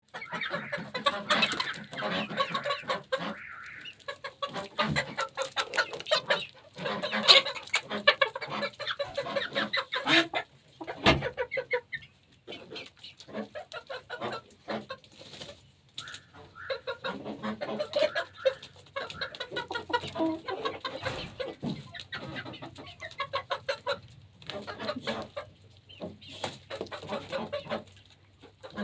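Chickens clucking, several birds calling over one another in quick, choppy bursts with short pauses between.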